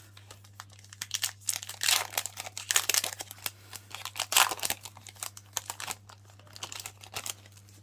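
Foil Pokémon booster pack wrapper being torn open and crinkled: irregular crackling and crunching for several seconds, loudest about two, three and four and a half seconds in.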